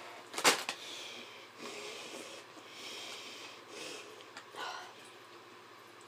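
Quiet breathing and mouth noises from someone sucking an ice lolly: a sharp click about half a second in, then several short sniffing breaths through the nose.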